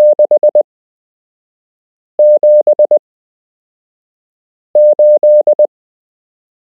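Morse code on a steady beeping tone of about 600 Hz: three short groups of dots and dashes, about two and a half seconds apart, practice numbers sent for learning by ear.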